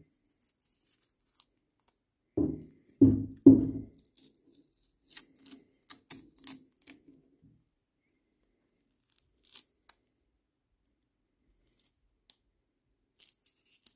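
Masking paper and tape being torn and peeled off a freshly painted metal part, crinkling and tearing. Three heavier rustles come a little after two seconds in, then lighter crackling, with a few last crinkles near the end.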